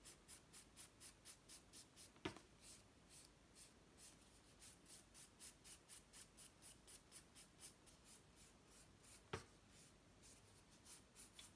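Faint rasping of a hand nail file worked across a fingernail in quick even strokes, about four a second, slowing and pausing at times. Two short sharp taps stand out, one about two seconds in and another a couple of seconds before the end.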